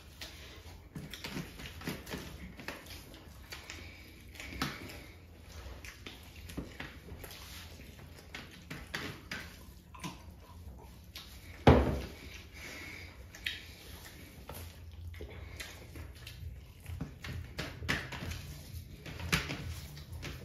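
Close-up wet eating sounds: hands squishing and mixing rice with chicken curry on steel plates, with chewing and lip smacks. One loud thump comes near the middle.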